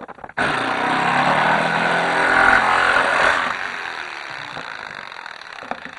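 Electric jigsaw switching on about half a second in and cutting through ABS plastic from a vacuum cleaner housing. It is loudest for the first three seconds, then runs on quieter.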